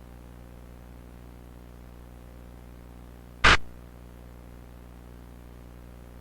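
Steady low electrical hum with faint hiss, broken about three and a half seconds in by one short, sudden burst of noise that is much louder than the hum and dies away quickly.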